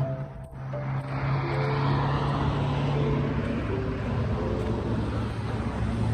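A car on the move: a steady low engine hum with road noise that grows louder about a second in.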